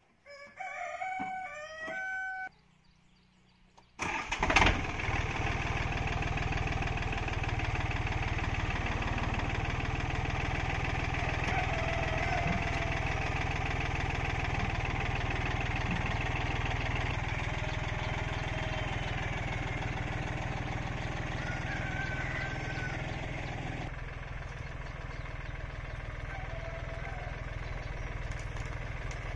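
A rooster crows, then about four seconds in the Yanmar F215 compact tractor's diesel engine starts with a loud burst and settles into a steady run. Roosters crow faintly over the engine.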